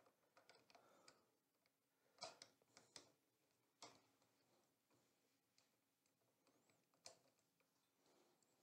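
Near silence broken by a few faint, scattered clicks: small metal sounds of a screwdriver backing screws out of a 3D printer's X-axis bracket.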